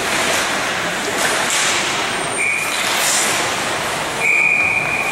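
Referee's whistle in an ice rink, blown twice: a short blast about halfway through and a longer, louder one near the end, stopping play. Under it is a steady noisy din from the rink.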